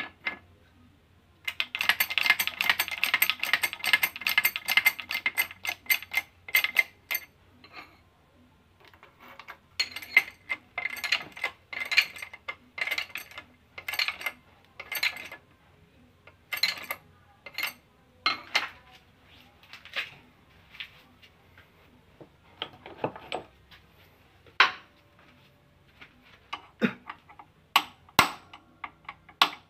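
Steel tie rod parts and tools clinking and rattling against each other as they are handled in a shop press: a dense rattling for the first few seconds, then scattered single clinks and taps.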